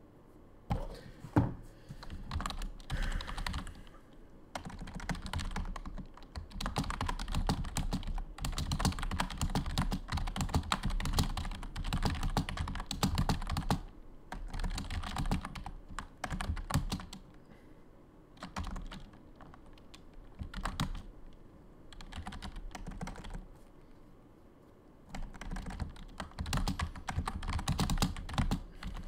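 Typing on a computer keyboard: runs of rapid key clicks in bursts, thinning out for several seconds past the middle before a last fast run near the end.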